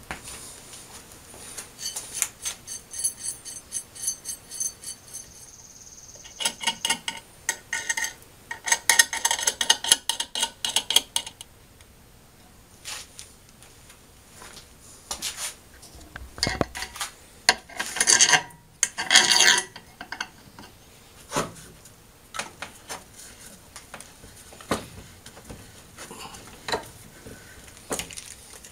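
Workshop handling noises: metal tools and threaded rod clinking, rubbing and scraping on a wooden workbench. A run of quick clicks comes first, then bursts of clattering.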